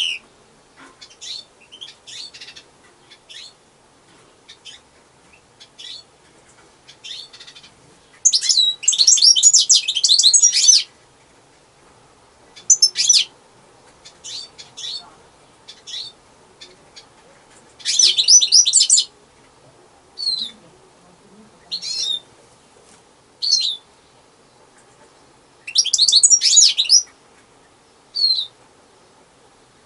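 European goldfinch singing: three bursts of rapid twittering song, each a couple of seconds long, with short single chirps in between.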